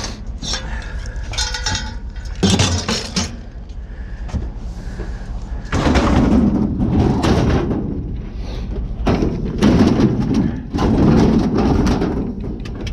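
Scrap being shifted and loaded by hand: clattering metal knocks for the first few seconds, then longer rough scraping and thudding as heavier pieces are dragged and set down.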